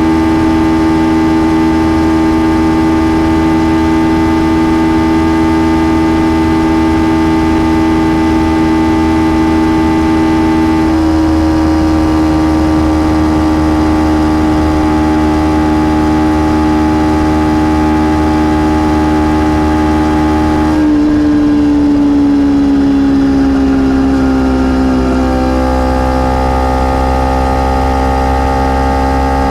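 Kawasaki Ninja 300 parallel-twin engine running at steady revs on the stock exhaust, with wind rush underneath. Its pitch steps slightly lower about a third of the way in, then falls over a few seconds about two-thirds in and settles lower as the revs come down.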